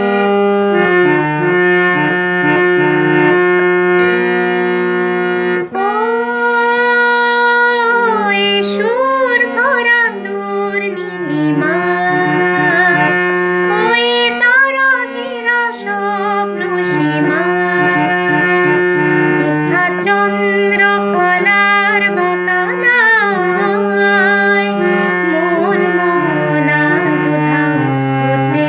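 Harmonium playing steady held chords and a melody alone for the first few seconds, then a woman's voice singing a Bengali song over the harmonium from about six seconds in.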